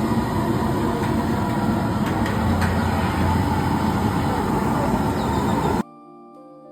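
Loud, steady rumbling noise with no clear tones, cutting off suddenly near the end and giving way to soft background music.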